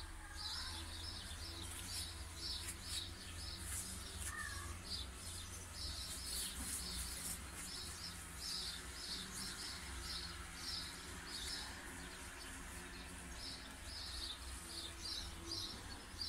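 A small bird chirping over and over, short high chirps about two or three a second, faint, over a steady low rumble.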